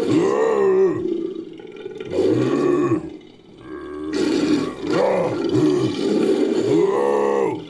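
Layered lion-like roars and growls making up a fictional big-cat creature's calls, several in a row with a short lull about three seconds in.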